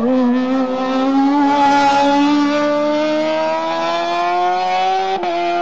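Race car engine under hard acceleration, its pitch climbing steadily in one long pull after dipping at the start. There is a short break in the sound about five seconds in.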